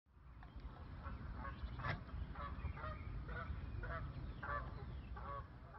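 Waterfowl honking, short calls repeated about two a second, over a low wind rumble on the microphone. It fades in over the first second and fades out at the end.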